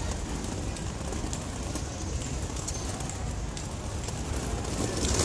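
Steady outdoor background noise with a low rumble on the microphone and a few faint ticks.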